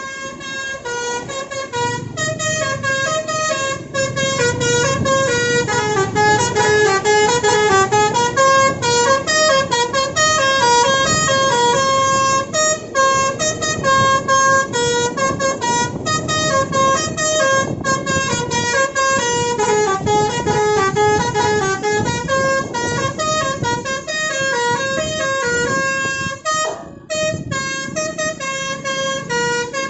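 Basuri telolet multi-tone horn on a tour bus playing a long, continuous melody, its notes stepping up and down, over a low rumble.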